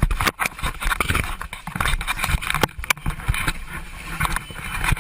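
Commotion inside the cabin of a small plane that has just ditched in the sea: a dense run of knocks and scrapes over a rushing noise of water and air, heard through a GoPro camera's microphone.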